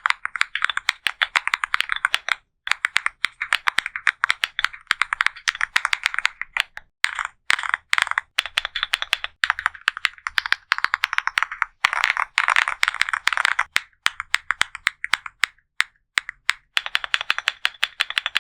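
Fast typing on a MonsGeek M1 V5 mechanical keyboard (aluminium case, gasket-mounted polycarbonate plate, Akko Piano Pro switches): quick runs of key clicks lasting a second or two, with short pauses between runs.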